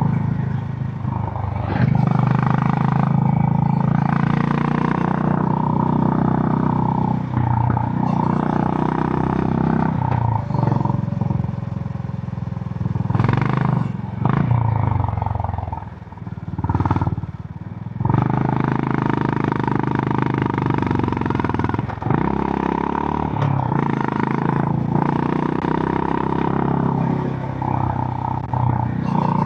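Honda GB350's 348 cc air-cooled single-cylinder engine running through its stock exhaust while riding. About halfway through the engine note drops away for a couple of seconds, as when rolling off the throttle, then picks up again.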